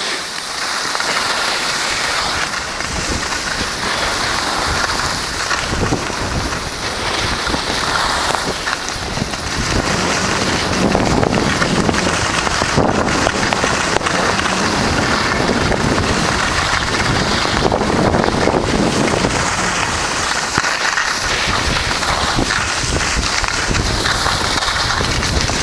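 Wind rushing over the camera's microphone while moving fast downhill, mixed with the hiss and scrape of sliding over snow; it gets louder about ten seconds in.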